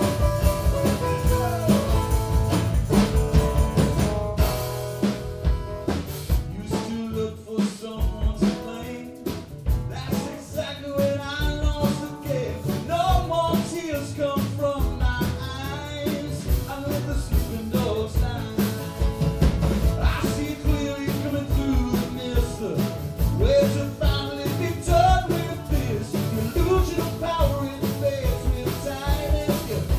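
Live band playing a roots-rock song: acoustic guitars strummed over a drum kit, with a man singing lead for much of it.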